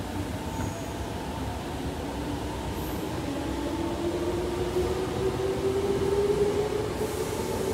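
An electric train's motors whine, rising steadily in pitch and growing louder from about two seconds in, as the train accelerates. Beneath it is the steady running noise of a Mitsubishi escalator.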